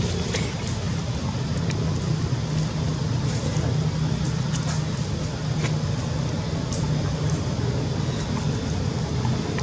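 Steady low motor rumble, like a running vehicle engine or road traffic, with a few faint clicks.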